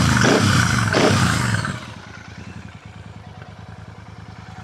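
Royal Enfield Super Meteor 650's parallel-twin engine revved through its exhaust, the revs rising and falling, then dropping back to a steady idle about two seconds in.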